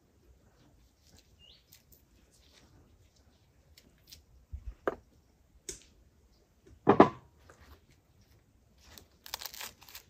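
Scattered knocks and handling noises, the loudest about seven seconds in, then a short rustle or tearing sound near the end. A faint single chirp, likely a bird, comes about a second and a half in.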